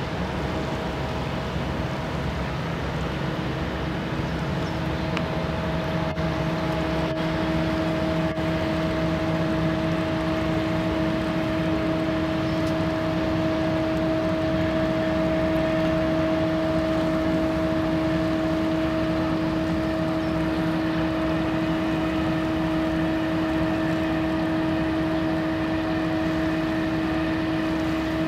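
Tugboat's diesel engine droning steadily under way while towing a barge, a steady hum over a low rumble, growing a little louder as the tug draws near.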